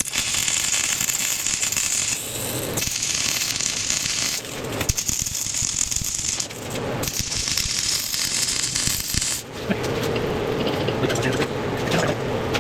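Gas-shielded MIG welder arc crackling and hissing in four runs of one to two seconds with short pauses between, as a bolt is welded into a thick steel puck. The welding stops about nine and a half seconds in.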